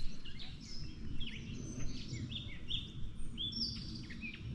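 Songbirds chirping, with many short, quick notes repeating over a steady low outdoor rumble.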